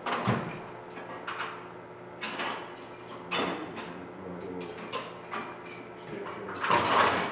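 Tools and their case being handled and set down: a series of separate knocks and clatters about a second apart, the loudest near the end.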